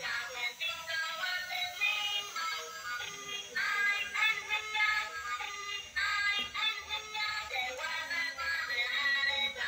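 Tinny electronic music with a synthesized singing voice, thin with no bass.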